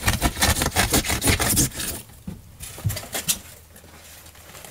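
A hand blade sawing through open-cell spray foam insulation with quick, rasping back-and-forth strokes for about two seconds. It then goes quieter, with a few more cuts or rips of the foam a little after the middle.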